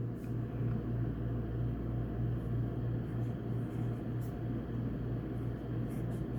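Steady low hum with a noisy background, and a few faint short scratches of a marker drawing on paper.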